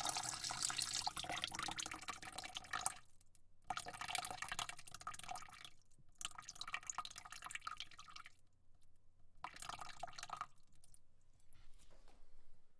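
Water spray spattering onto a bucket in bursts. A steady spray stops about three seconds in, then comes three more times with short pauses between, and the last burst trails off near the end.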